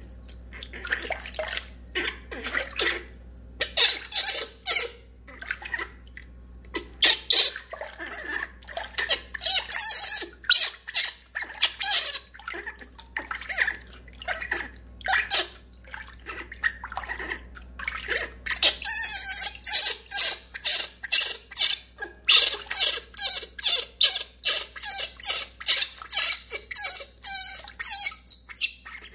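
Baby macaque crying in short, high shrieks over water splashing as it is washed in a basin. The cries come in irregular bouts at first, then about two a second in a steady run through the second half.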